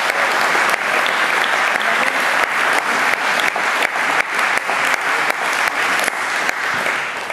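Crowd applauding: many hands clapping at once, tapering off near the end.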